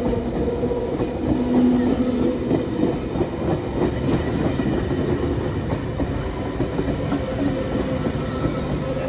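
Passenger train running past on the rails: a steady rumble of wheels with rapid clattering over the track.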